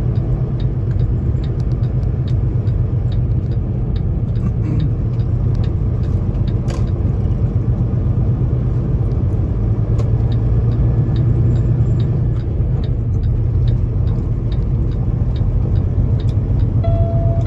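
Semi-truck's diesel engine droning steadily inside the cab at low speed, with light ticks recurring over it and one sharper click about seven seconds in.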